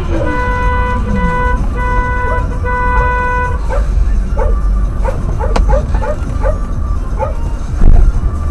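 A car horn sounds four times in quick succession, the first and last two longer and one short in between, then a dog barks over and over, two or three barks a second, over a steady low rumble.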